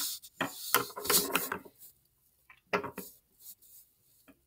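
Irregular clicks, taps and short rubbing scrapes of things being handled on a wooden tabletop, with near-silent gaps between them.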